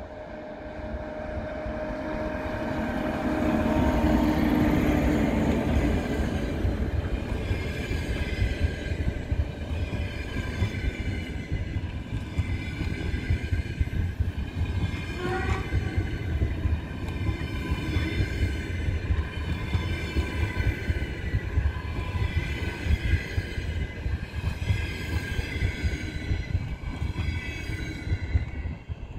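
EP2K electric locomotive and its long train of double-deck passenger coaches passing at speed. It has a steady tone at first and is loudest about four to five seconds in as the locomotive goes by. Then comes a long, rhythmic rumble of wheels on rails as the coaches roll past, with a brief squeal about fifteen seconds in, and it drops off right at the end.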